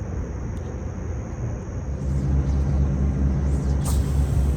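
A boat motor running with a low, steady hum that gets louder about halfway through.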